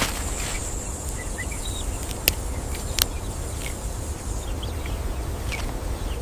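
Outdoor savanna ambience: a steady high insect buzz that fades about two-thirds through, over a low wind rumble, with a few faint bird chirps and two sharp clicks near the middle.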